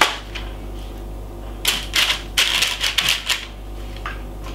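Greaseproof paper crinkling and rustling on a metal baking tray as marinated chicken wings are laid onto it: a sharp click at the start, then a quick run of short crackles in the middle.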